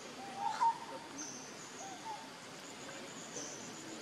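Outdoor forest ambience with short, chirping animal call notes repeated a few times, the loudest about half a second in, over a thin, high, on-and-off whine.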